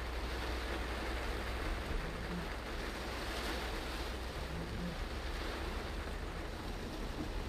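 Heavy rain and wet-road tyre noise heard from inside a moving car: a steady wash of noise over a constant low rumble.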